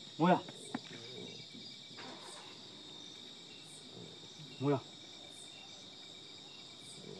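Steady, high-pitched chirring of night insects such as crickets. A short voice call breaks through twice, about a third of a second in and again near five seconds.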